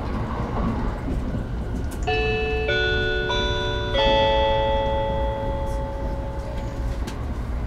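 An onboard announcement chime on a JR East limited express train: four stepped notes, the last held as a chord that fades out. It sounds over the steady low rumble of the train running, and it introduces the automatic announcement of the approaching stop.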